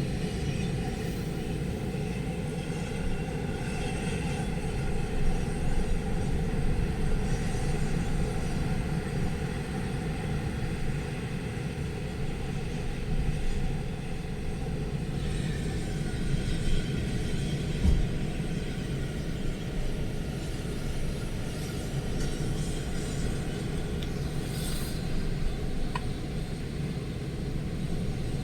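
Strong storm wind rushing and buffeting the microphone in a steady low rumble that swells and eases a little.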